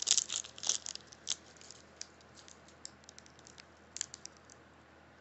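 Foil wrapper of a Pokémon trading card booster pack crinkling and crackling in the fingers as its top edge is picked at, in short crackles that are densest in the first second and then come sparsely. The pack won't tear open, which he takes for a resealed pack glued shut.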